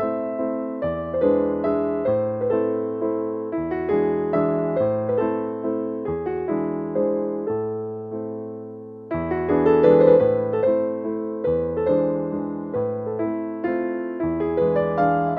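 Background music: a gentle piano or electric-piano tune with a steady run of notes over a changing bass line.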